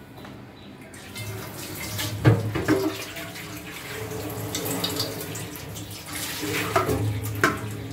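Kitchen tap running into a steel sink, water splashing into a plastic tub as fish pieces are rinsed, with a few sharp knocks of the tub and plate against the sink.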